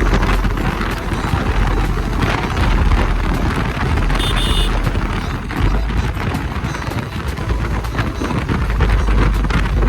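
Wind buffeting the microphone of a rider on a moving Bajaj Pulsar motorcycle, with engine and road noise underneath. A brief high-pitched tone sounds about four seconds in.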